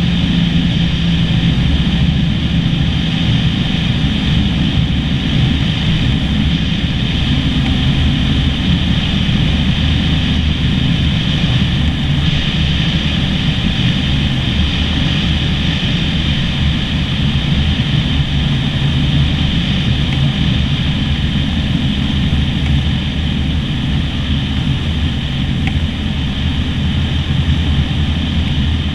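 Cessna 152's four-cylinder Lycoming engine and propeller running steadily, heard from inside the cockpit while the plane comes in on approach to the runway.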